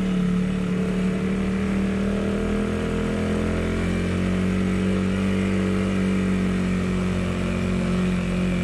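Small vehicle engine with a 28 mm carburettor running steadily under way on a steep climb, its hum holding an even pitch.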